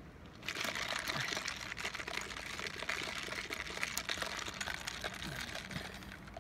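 Drink slurped through a plastic straw from a fast-food cup: a noisy, gurgling suck of liquid and air with many small clicks, starting about half a second in and easing off near the end.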